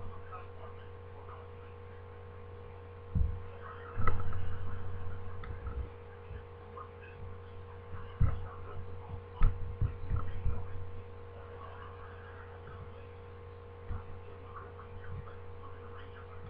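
Steady low electrical hum in the recording, with a few soft low thumps scattered through it, the loudest about four seconds in.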